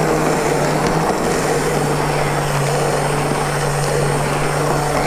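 Electric immersion (stick) hand blender running steadily in a bowl, puréeing gazpacho, with an even motor hum.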